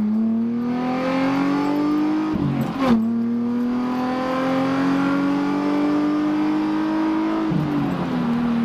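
Nissan 350Z's VQ35 V6, fitted with a Blox plenum spacer, accelerating hard through the gears. The revs climb, drop at a gear change about two and a half seconds in, climb steadily for about five seconds, then drop at another shift near the end.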